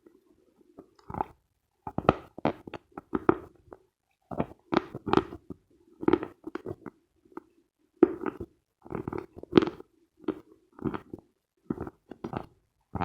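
Dry, dense Khrapovsky chalk crunching as it is bitten and chewed close to the microphone. The crunches come in small clusters, one every half second to a second, after a short quiet start.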